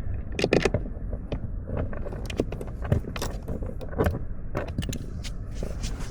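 Irregular clicks, clinks and light knocks of bolts and tools being handled while the replacement blower motor is fitted under the dash, over a low steady hum.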